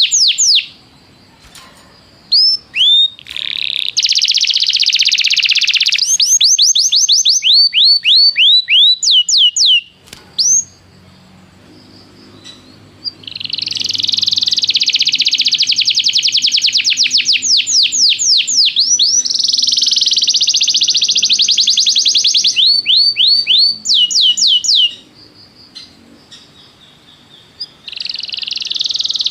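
Domestic canary singing long phrases of fast, high repeated trills and rolls, broken by pauses of a few seconds.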